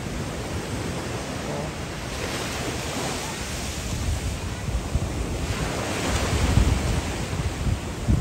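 Heavy surf from a rough sea at high tide: waves breaking and washing over rocks, with wind buffeting the microphone. The loudest surge comes about six seconds in.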